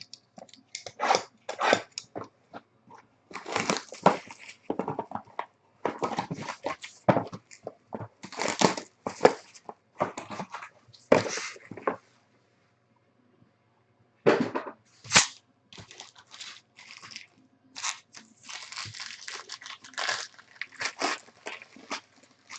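Trading card box and pack wrapping being torn open and crinkled, in irregular bursts of tearing and crinkling. There is a pause of about two seconds a little past the middle.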